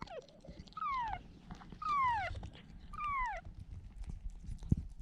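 Kitten meowing: a short call right at the start, then three high, falling meows about a second apart.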